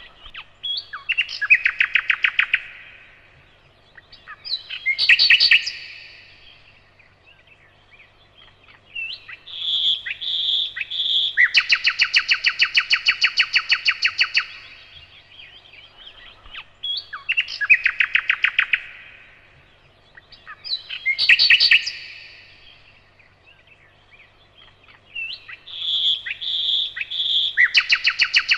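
Nightingale singing in separate phrases of a few seconds, with short pauses between them. The phrases are made of quick trills and repeated notes, including a long, fast rattle of identical notes about ten a second.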